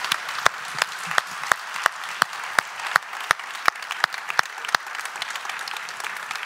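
Congregation applauding, with one person's loud, close claps standing out about three times a second until nearly five seconds in.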